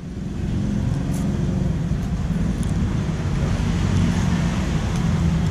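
Road vehicle engine rumble, steady and low, building over the first second and then holding.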